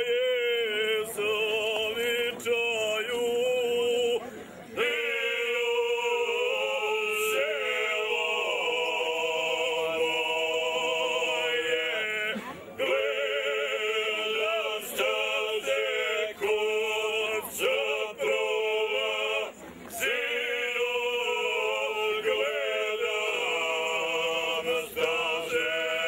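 Ojkača: a group of five men singing unaccompanied, voices together on long held notes with the wavering, shaking tremble of the style. The singing breaks off three times for brief breaths.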